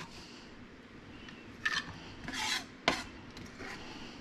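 Kitchen knife scraping across a cutting board in a few short strokes, with one sharp tap about three seconds in, pushing minced shallots around.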